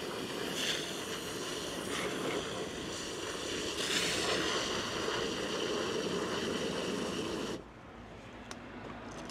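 Water from a garden hose running into a wash bucket, a steady rush that cuts off suddenly near the end.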